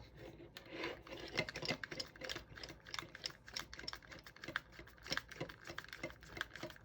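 Small irregular clicks and taps of 3D-printed plastic parts being handled and pressed together, several a second.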